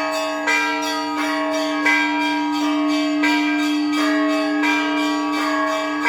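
Orthodox cathedral bells ringing: smaller bells are struck in a steady rhythm, about three strokes every two seconds, with changing pitches, over a larger bell that keeps ringing underneath.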